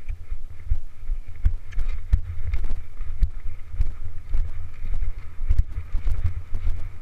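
Wind buffeting the microphone of a rider's helmet camera as a horse moves at pace along a dirt track, with the irregular thuds and knocks of its hoofbeats and the rider's movement.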